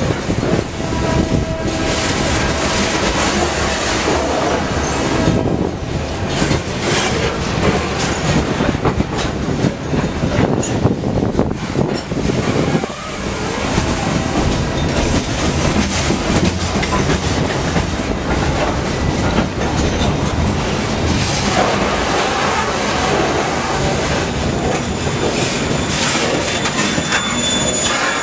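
A train rolling past close by on the New England Central Railroad, its wheels running steadily over the rails.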